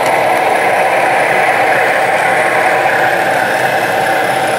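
Model diesel switcher locomotive pulling a freight train along layout track, a steady mechanical running noise with no distinct clicks or breaks.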